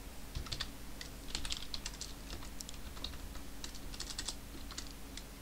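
Typing on a computer keyboard: quick, irregular keystrokes over a steady low hum.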